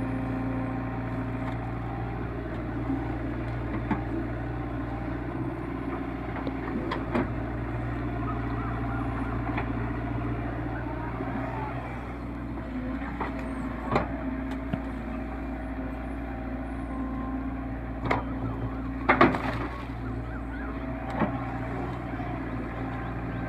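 Crawler excavator's diesel engine running steadily while it digs in deep mud, with a few sharp knocks from the working arm and bucket, the loudest a cluster about nineteen seconds in.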